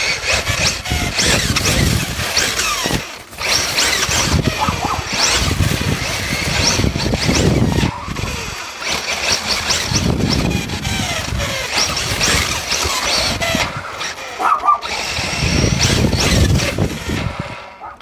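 Brushless electric motor of a Team Associated RC8.2e 1/8-scale buggy whining up and down in pitch with repeated bursts of throttle, over the rumble and rattle of its tyres and chassis on pavement. Heard from a camera mounted on the car, with short lulls between runs.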